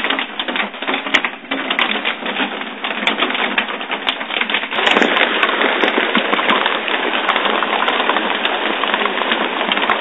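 Marble-sized hail pelting down: a loud, dense clatter of many hailstones hitting, which gets louder about five seconds in.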